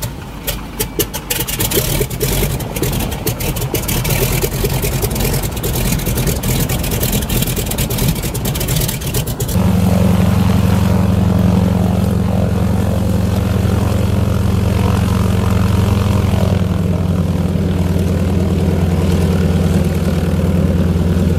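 Noorduyn Norseman's nine-cylinder radial engine just after start, turning the propeller. For about the first nine seconds it fires unevenly with rapid pops and coughs, then it abruptly smooths into a steady, even run.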